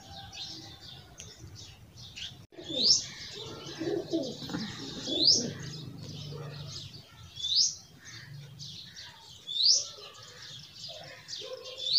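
Caged pigeons cooing softly, with a sharp high chirp repeating about every two seconds and lighter chirping around it.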